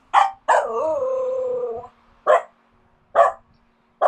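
Finnish Spitz vocalizing: a short bark, then a drawn-out yowl lasting about a second and a half, then three single barks about a second apart.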